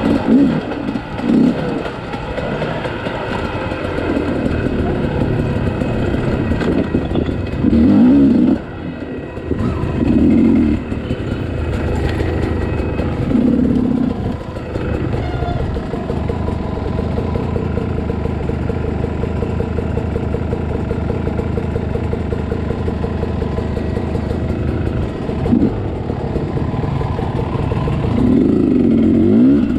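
Two-stroke dirt bike engine running under the rider on the trail, revving up in short repeated bursts, with a steadier stretch of running in the middle.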